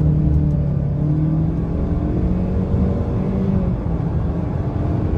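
2017 Honda Civic RS Turbo's 1.5-litre turbocharged four-cylinder engine running as the car drives along, a steady engine note that shifts a little in pitch. There is no knocking, now that worn spark plugs have been replaced with new ones.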